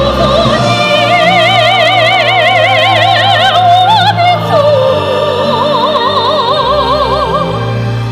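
A female soprano sings long held notes with a wide vibrato, backed by a symphony orchestra and choir. About four seconds in her pitch drops and she holds a new note.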